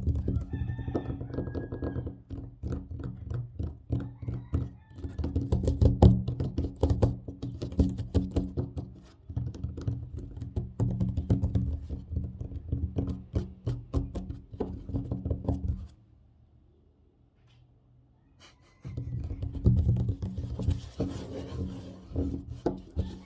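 Fast, hard tapping and scratching with fingers and nails on a tabletop: dense runs of knocks, stopping for about three seconds past the middle and then starting again.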